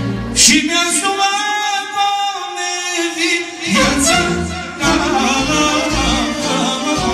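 Live manele performance: a male singer holds one long note while the bass and beat drop out. About four seconds in, the full band, with keyboard bass, drums and violin, comes back in under his singing.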